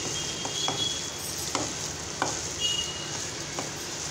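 A hand squeezing and mixing wet shredded potato with gram-flour batter in an aluminium bowl: irregular squelching clicks over a steady hiss.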